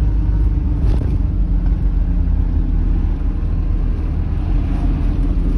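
Mercedes Vario 818 diesel expedition truck driving over a broken, potholed road: a steady low rumble of engine and road noise, with a single knock about a second in.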